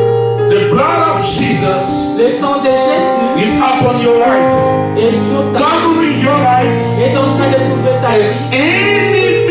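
Church worship music: a keyboard holding sustained chords, with a voice singing over it.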